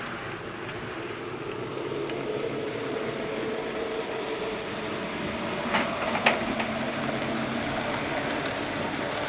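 Narrow-gauge model train, an electric locomotive pulling a panorama coach, running past on the track with a steady rumble and hum. Two sharp clicks about half a second apart come a little past the middle.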